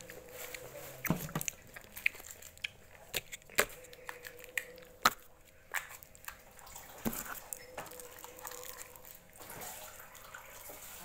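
Small plastic jelly cups being handled: scattered sharp clicks and crinkles of thin plastic as a cup is squeezed and the sealed film lid of the next cup is picked at and peeled, with some wet mouth sounds of jelly being eaten.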